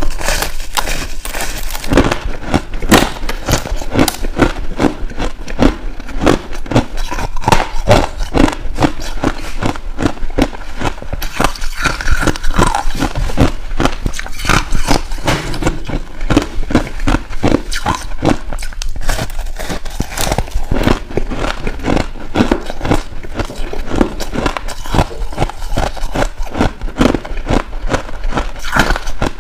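Close-miked biting and chewing of finely crushed ice packed into a lump: a dense, unbroken run of hard crunches, several a second.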